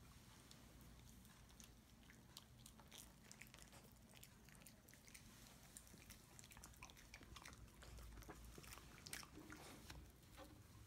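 Shiba Inu dogs chewing bits of cake: faint, irregular crunches and clicks of teeth.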